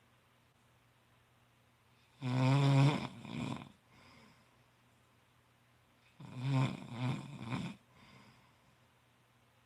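A sleeping man snoring: two loud snores about four seconds apart, each a long snore followed at once by a shorter one, with quiet breathing gaps between.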